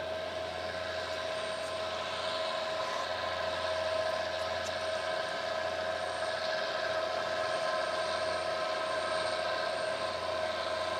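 Diesel engines of a towboat pushing a river barge close by, giving a steady drone with a held whine over a low hum.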